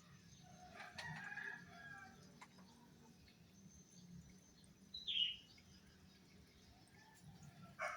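Faint animal calls: a pitched call lasting about a second and a half near the start, and a short, high call falling in pitch about five seconds in.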